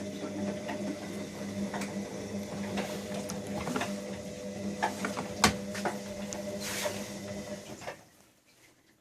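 Siemens Siwamat XLS 1240 washing machine's drum motor turning the drum during a wash, a steady hum with irregular clicks and knocks from the tumbling load, stopping about eight seconds in.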